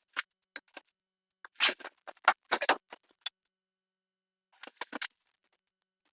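Scattered short scrapes, clicks and knocks from drain pipe and fittings being handled and worked on, in a few quick clusters: a couple of clicks near the start, a busier run of scrapes about one and a half to three seconds in, and another cluster about five seconds in.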